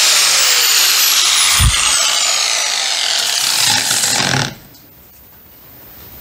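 Hand-held angle grinder with a sanding disc, sanding a back angle into a piece of wood trim. Its whine falls in pitch as the motor winds down. There is a low thump about a second and a half in, and the noise cuts off abruptly about four and a half seconds in.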